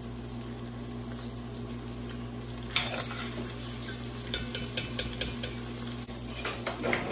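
Breakfast sausage crumble sizzling in its hot fat in an enameled pot, with a metal spoon scraping and clinking against the pot several times, the loudest clink about three seconds in. A steady low hum lies underneath.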